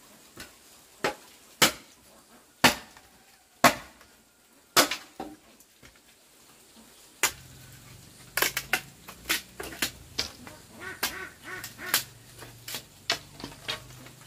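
A series of sharp knocks, about one a second at first, then quicker and irregular from about halfway through, when a low steady hum also sets in.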